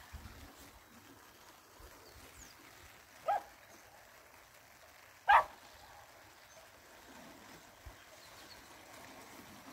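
A dog barking twice, two short barks about two seconds apart, the second louder.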